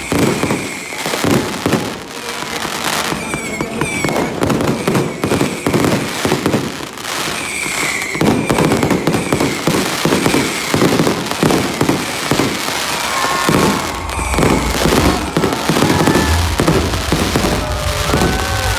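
Fireworks going off in rapid, irregular succession: a dense string of bangs and crackles, with short falling whistles among them.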